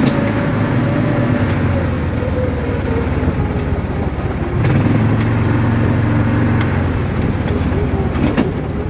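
ATV engine running steadily under way, its pitch sagging slowly and picking up again near the end, with a few sharp knocks from the ride.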